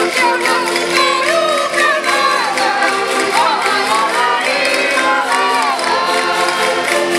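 Women singing a Minho folk song together over concertinas, the diatonic button accordions holding steady chords beneath the voices.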